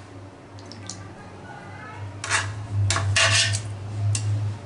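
Metal spoon scraping and clinking against the inside of a metal pressure cooker as cooked mutton pieces are lifted out of thick masala, with several sharp scrapes in the second half. A steady low hum runs underneath from about halfway through.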